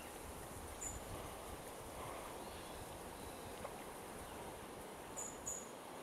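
Faint, steady outdoor marsh ambience with three short, high, falling chirps: one about a second in and two in quick succession near the end.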